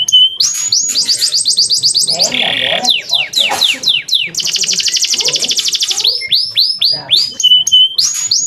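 Male domestic canary singing a long, varied song: fast rattling trills alternate with runs of quick downward-sweeping whistled notes.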